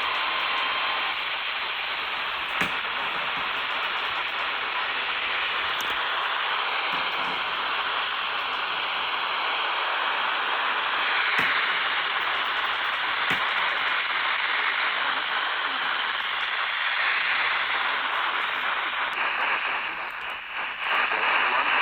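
Steady hiss of static from an FM weather-band radio receiver, with a few faint clicks. The hiss dips briefly near the end.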